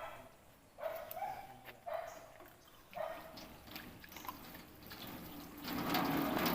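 A dog barking in short calls, about once a second, four times. Near the end a louder steady rushing noise sets in.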